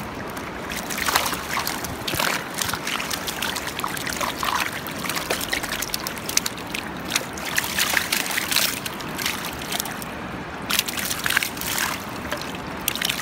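Water splashing and sloshing irregularly as a landing net full of live fish is moved and lifted in the shallows, the fish thrashing, over the steady rush of the river.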